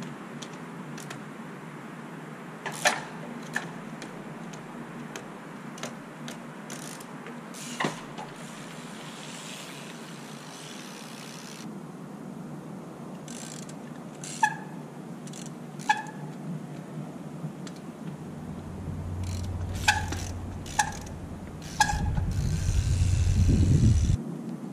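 Trials bike being ridden and hopped on concrete: a series of sharp knocks as the wheels land, some with a brief metallic ring, with the freewheel buzzing between them. Near the end a louder low rumble builds and then cuts off suddenly.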